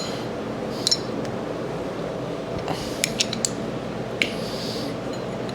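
A few scattered metallic clicks and clinks of a wrench on the housing bolts of a rebuilt hydraulic pump as they are snugged down, several coming together about three seconds in. A steady low hum runs underneath.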